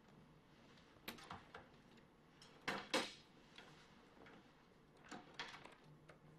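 A coat being taken off a wire hanger on a door hook and put on: light clatters and rustles, the loudest two knocks close together about three seconds in, over faint room tone.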